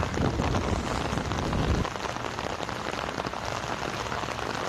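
Heavy rain falling steadily, a dense patter throughout. A low rumble underlies it for the first two seconds and cuts off suddenly.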